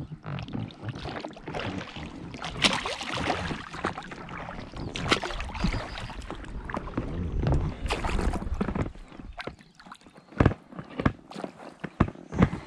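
Small boat being worked in among the branches of a bush at the water: irregular rustling and scraping with splashes for about nine seconds, then several separate sharp knocks near the end.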